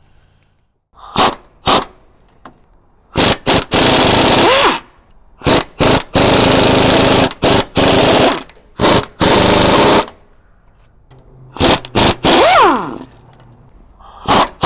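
Pneumatic impact wrench rattling in a string of trigger bursts, some brief and some running about a second, as it breaks loose and spins off the sway-bar saddle bracket bolts.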